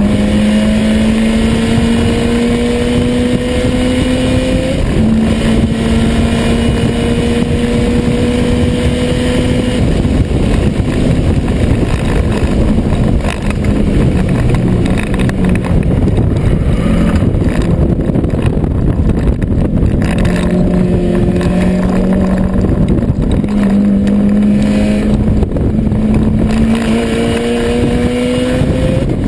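Subaru Impreza WRX STI's turbocharged EJ25 flat-four, heard from inside the cabin under hard driving. The engine note climbs under throttle and steps down at gear changes, about four to five seconds in and again near the end, and is lower and more uneven in the middle stretch, over steady road and wind noise.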